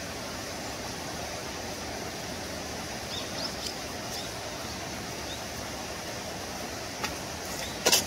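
Steady rushing outdoor background noise, with a few faint short high chirps in the middle and two sharp clicks near the end, the second the loudest.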